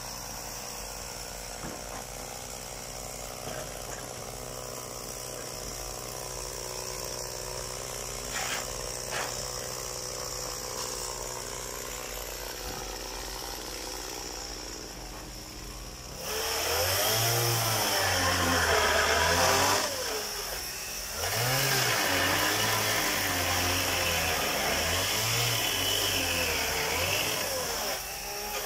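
A faint steady hum, then from about two-thirds in a chainsaw running loud, its pitch repeatedly dipping and rising as it cuts into the wood of pallet crates.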